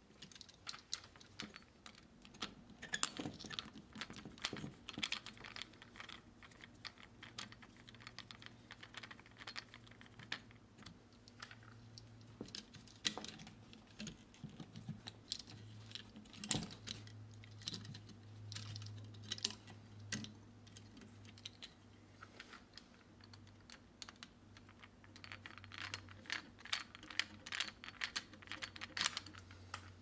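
Irregular small clicks and taps of a plastic electrical outlet and its wires being handled as the wires are worked off the terminal screws, thicker near the start and again near the end.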